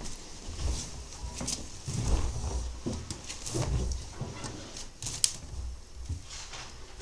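Miele Novotronic W923 front-loading washing machine at the start of a cottons 40 °C wash, giving irregular low thumps with sharp clicks and rustles between them.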